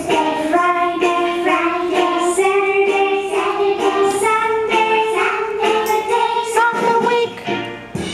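A children's days-of-the-week song, sung by a female voice with music, note by note in held, stepping pitches.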